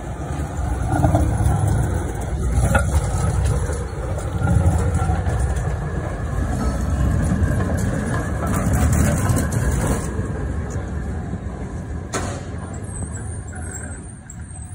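Vienna type E2 tram rolling past close by on its rails, a loud steady rumble of wheels and running gear with a couple of sharp clacks, dying away near the end as it moves off.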